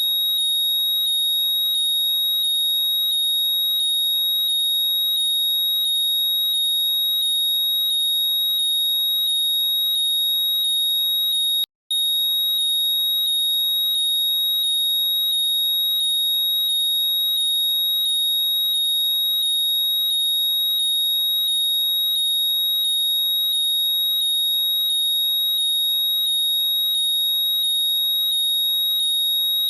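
Apple AirPods Find My locating sound: a loud, high-pitched electronic chirping that repeats quickly over a steady high tone, cutting out for a moment about twelve seconds in.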